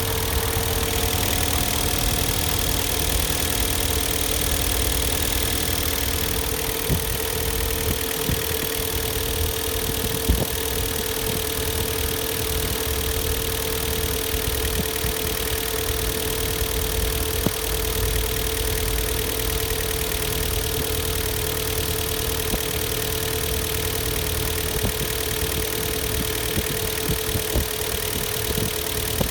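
Hyundai/Kia G4KD 2.0-litre four-cylinder petrol engine idling steadily while warming up, with a few sharp ticks over the steady hum.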